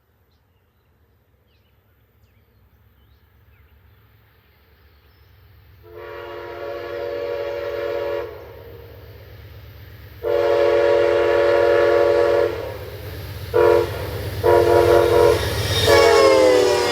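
Air horn of the Amtrak Lake Shore Limited's lead locomotive, No. 92, blowing the grade-crossing pattern: two long blasts, a short one, then longer blasts. It sounds over the growing rumble of the approaching train, and the horn's pitch drops near the end as the locomotive passes.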